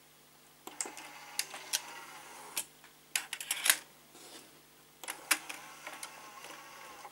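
NEC KD-1000 DAT deck's motorised cassette loader: the door opens with a motor whir and clicks, a DAT cassette clacks into the holder by hand with a few sharp clicks, then the motor whirs again and clicks as the door closes and takes the cassette in.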